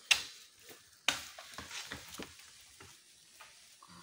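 Wood fire with green bamboo tubes in it, crackling and popping: two sharp loud pops about a second apart, each fading in a hiss, then smaller crackles.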